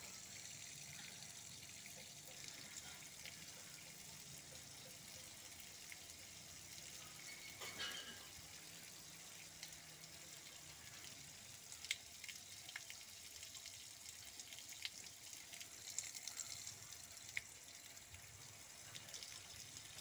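Faint, steady splashing of a sand filter's cloudy backwash water pouring from a pipe end onto the ground, with a few small ticks.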